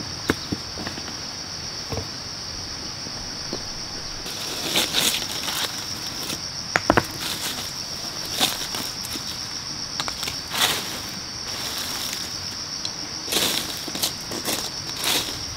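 Insects droning steadily at a high pitch, with stones and a brick knocking together several times as they are moved and set down by hand.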